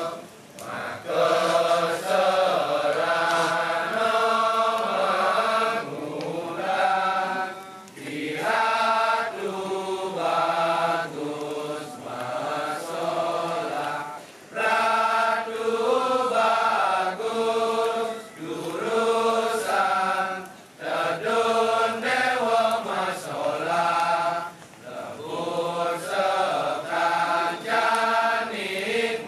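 A chorus of men singing a slow, melodic Balinese Sanghyang chant in unison, in phrases of a few seconds with brief pauses between them, accompanying the fire dance.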